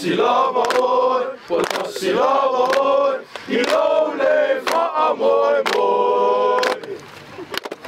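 A large group of young men singing a chant together in unison, in held phrases of about a second, led by one voice and broken by sharp hand claps.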